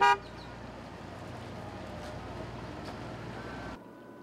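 A short horn toot right at the start, then steady open-air noise with a low rumble over the water, which cuts off sharply near the end.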